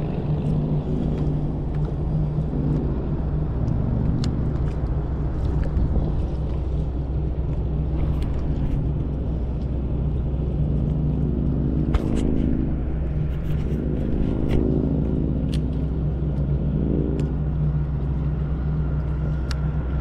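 A steady low engine hum with a few light clicks and taps over it; a faint rising whine comes in near the end.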